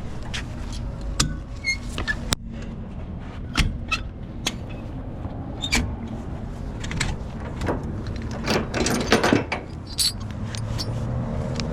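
Scattered metal clanks, clicks and rattles of towing gear being handled as a truck is unloaded from a trailer, over a steady low engine idle.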